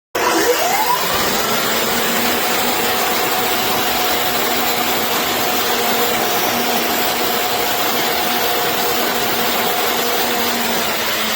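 A 1800 W electric concrete saw (12-inch circular cutter) switched on, its motor spinning up with a rising whine over about a second, then running steadily at speed without cutting.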